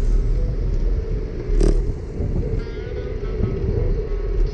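Rumble of wind on the microphone and city traffic, including a city bus, heard from a moving bicycle, with one sharp knock about a second and a half in.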